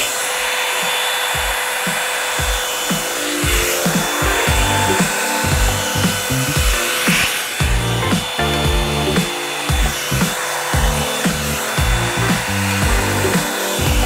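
Revlon One-Step hair dryer brush running steadily on its hot setting: rushing air with a steady whine. Background music with a beat comes in about two seconds in.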